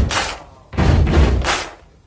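Dance music over a stadium's public-address speakers in a stop-time break: two heavy accented hits about three-quarters of a second apart, each ringing out and fading into a short silence.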